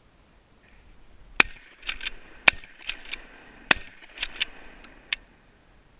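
Mossberg 500 pump-action shotgun fired three times in quick succession, each shot followed by the two clacks of the pump being worked back and forward, with a couple more clacks near the end.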